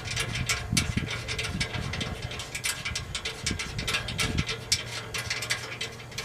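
Irregular rapid metallic clicking and clinking of steel chain links and hand tools being worked on the chain that holds up a truck's exhaust, over a low steady hum.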